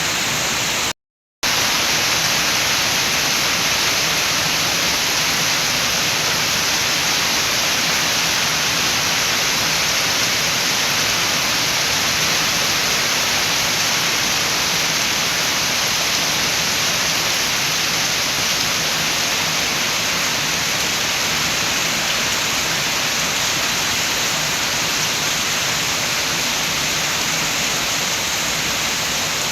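Steady heavy rain with wind, an even continuous hiss. About a second in it cuts out completely for half a second, then resumes unchanged.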